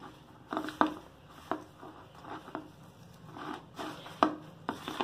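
A hand mixing chopped greens, sliced onion and wheat flour in a stainless steel bowl: a rustling, squishing stroke about three times a second, a few of them with a sharper knock.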